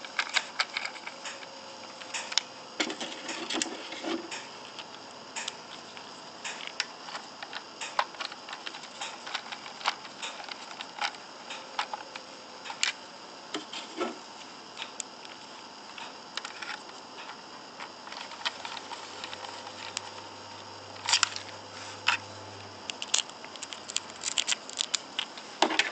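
Irregular small clicks, taps and scrapes of screws and parts being handled while a damper assembly is screwed back together. A faint low hum runs for a few seconds near the end.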